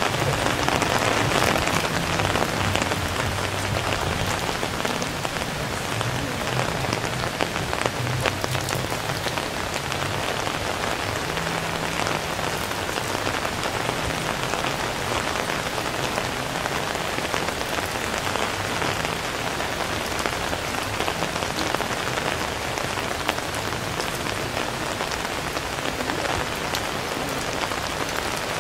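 Steady heavy rain falling, with the close patter of many individual drops and a faint low hum underneath.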